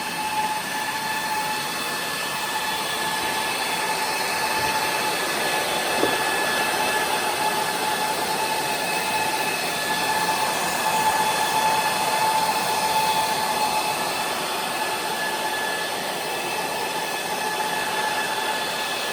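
Supermicro 2U GPU server's cooling fans running at high speed: a steady rush of air with a constant high whine.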